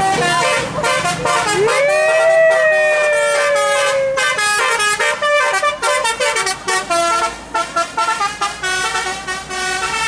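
Tour bus telolet multi-tone horn playing a quick melody. About two seconds in, a long note slides up and holds, and it ends in a fast run of short notes.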